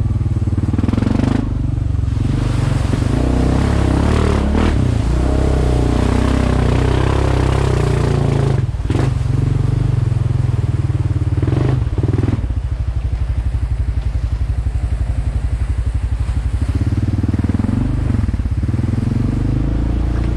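Honda ATV engine running under way, its revs rising and falling with the throttle and briefly dropping off about 9 and 12 seconds in.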